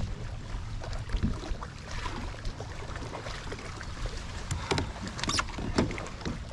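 Scattered knocks and clicks of gear being handled in a kayak, a few sharper ones more than halfway through, over a steady low rumble of wind and water.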